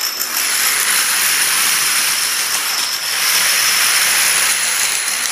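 A large field of plastic dominoes toppling, a continuous dense clatter.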